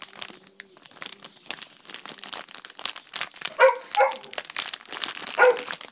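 Small dog giving three short yaps, two close together about halfway through and one near the end, over a steady crinkling rustle.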